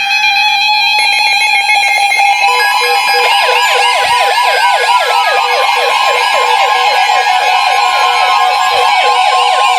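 NOAA Weather Radio warning alert sounding on several weather radios at once. Digital alert-header bursts stop about a second in, then a steady alarm tone plays. From about three seconds in, the radios' own fast warbling siren alerts overlap on top of it, signalling a newly issued severe thunderstorm warning.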